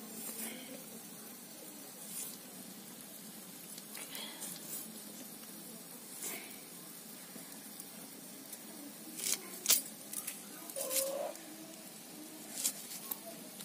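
Raw potato being cut against a curved iron boti blade: sparse short slicing scrapes and clicks a second or two apart, with two sharper clicks about two-thirds of the way in. Near the end the sound turns to the papery handling of an onion being peeled.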